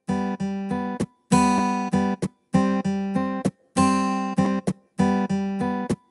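Music: an acoustic guitar strumming chords in a choppy rhythm, each group of strums cut off sharply, with short silences between them.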